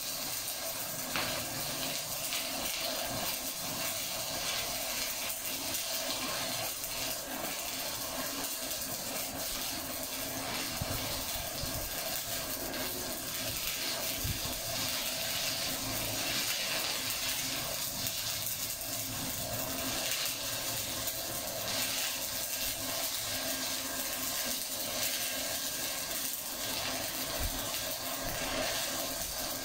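Shielded metal arc (stick) welding: the electrode's arc giving a steady crackling hiss as a bead is run on flat steel plate.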